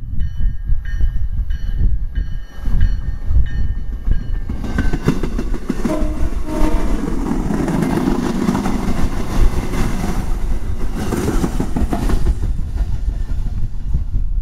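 MBTA commuter rail train passing close: its horn sounds in several short blasts in the first few seconds as it approaches, then the bilevel coaches and diesel locomotive go by loudly from about 5 to 12 seconds in. Wind buffets the microphone throughout.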